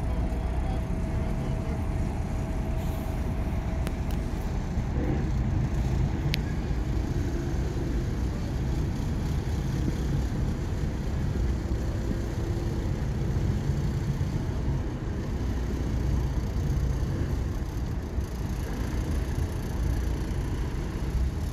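Cruise ship's engines running with a steady low rumble and hum as it manoeuvres in the harbour, with a single short click about six seconds in.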